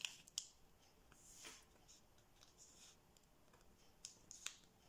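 Faint rustle and crackle of thin kami origami paper being handled and creased by fingers. A few short crisp ticks, two close together near the end.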